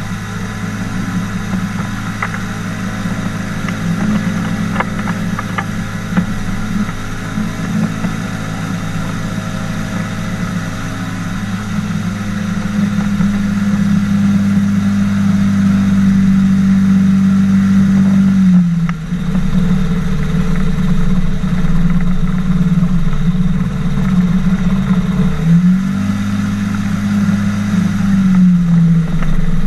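Engine and pusher propeller of a flying boat (an inflatable boat under a hang-glider wing) running hard while it skims over the water. The engine note drops suddenly about two-thirds through as the throttle is eased, picks up again briefly, then drops once more near the end.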